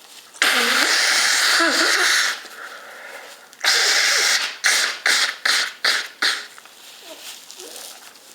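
Nose blown, not honking: one long blow of about two seconds, a second shorter blow, then a run of about six quick short puffs.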